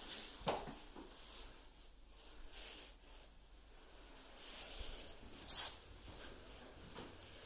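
Faint handling and rustling noise from a hand-held phone being carried through the rooms, with two brief louder scuffs, about half a second in and again about five and a half seconds in.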